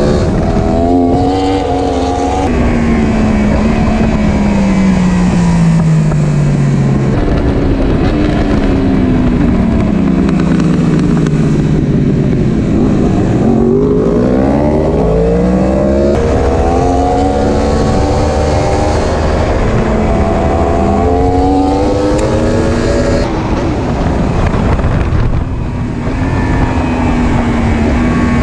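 Motorcycle engine running hard: its pitch falls as it slows, jumps up with downshifts a few seconds in, then climbs as it accelerates from about halfway and drops back with upshifts, over steady rushing noise.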